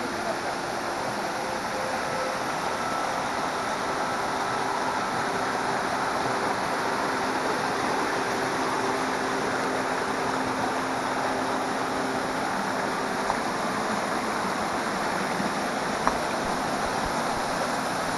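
Waterfall and the rocky stream below it: a steady, unbroken rush of falling and running water.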